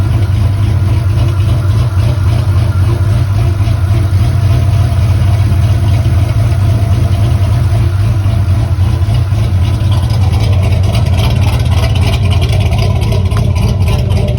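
Chevy car engine idling steadily with a deep, even rumble.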